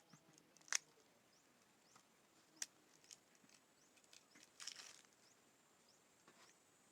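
Faint scattered clicks and taps, with a short rustle just before five seconds in, from handling the opened package and its cards.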